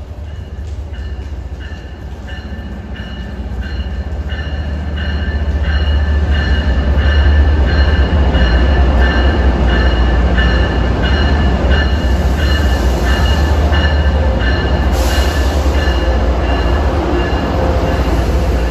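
MBTA MPI HSP46 diesel locomotive arriving at a platform, its low engine drone growing louder as it approaches and passes. Its bell rings about twice a second, and a short hiss of air is heard about three-quarters of the way through.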